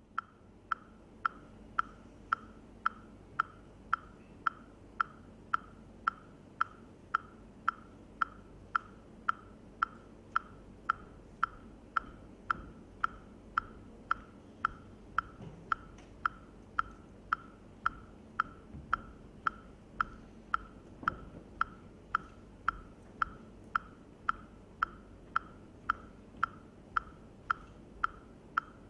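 A steady percussive click beat: one sharp, pitched tick repeating evenly, nearly twice a second, keeping time for the dance.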